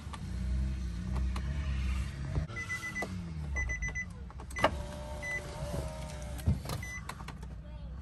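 A car's engine running steadily, with several short high electronic beeps and a few sharp clicks.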